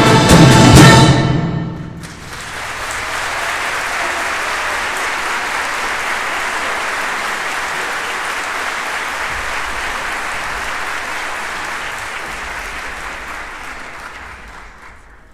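Symphony orchestra ending a piece on a loud final chord about a second and a half in, followed by steady audience applause that fades away near the end.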